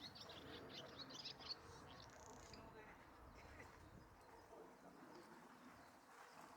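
Faint, quick bird chirps in the first second and a half, then near silence with faint outdoor background.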